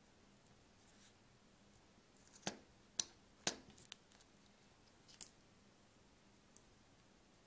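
Clear self-adhesive rubber bumper feet being peeled off their plastic backing sheet and handled: a few sharp clicks and crackles, three of them spaced about half a second apart a few seconds in, and one more a couple of seconds later.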